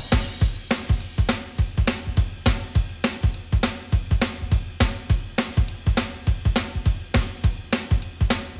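Background music: a drum-kit beat on its own, kick, snare and hi-hat, about four hits a second.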